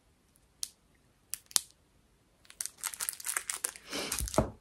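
A few light clicks, then about two seconds of packaging crinkling as it is handled, with a dull knock near the end.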